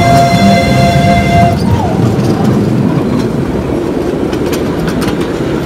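Miniature ride-on railway train running along its track: a steady low rumble with a few sharp clicks near the end, like wheels over rail joints. A held whistle-like tone sounds at the start and stops about a second and a half in.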